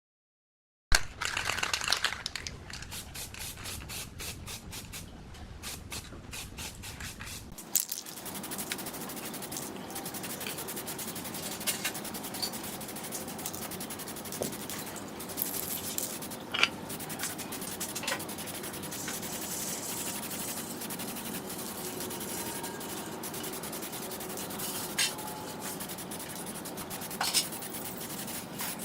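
Hand rubbing and scraping on old ceiling fan parts. For the first several seconds it comes in quick repeated strokes, about four a second; then it turns to a steadier rasp with a few sharp clicks.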